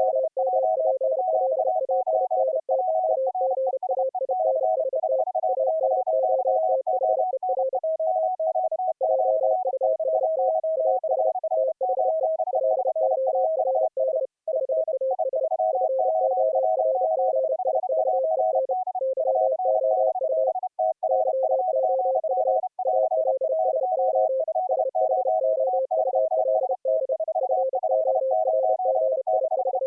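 Morse code (CW) sidetones at three different pitches keyed rapidly and overlapping, several operators sending at once and mixed together in one audio-over-IP stream.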